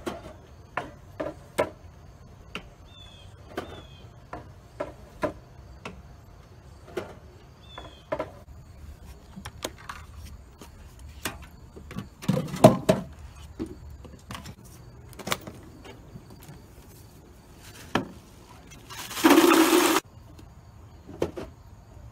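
Scattered wooden clicks and knocks from a beer-dispensing wooden chair being worked: a handle pulled, and beer cans knocking through the wooden tower and slot and being handled, with a louder cluster of knocks past the middle. A few short high chirps early on, and a loud rushing noise about a second long near the end.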